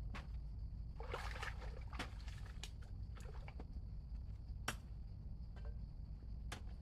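Water splashing and sloshing in short irregular bouts, with scattered knocks and clicks over a steady low rumble.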